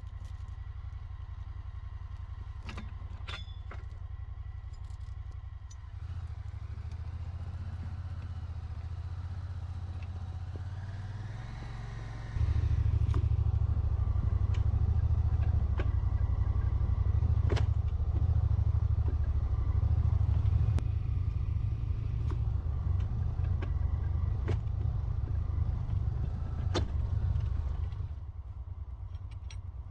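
Side-by-side utility vehicle's engine running under way, a low drone that gets louder in two steps, the second and larger about twelve seconds in, then eases off near the end. Scattered clicks and rattles sound over it.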